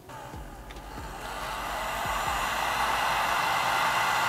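Ryobi heat gun switched on, its fan blowing with an airy rush that builds over the first two seconds and then runs steadily.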